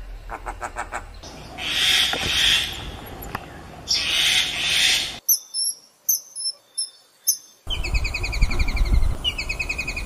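A run of separate bird-call recordings cut one after another. First a myna calls briefly, then an unseen bird gives harsh, hissing calls for about four seconds. Then come the high, thin piping whistles of a common kingfisher, and from about two-thirds in the rapid chattering trill of a white-throated kingfisher.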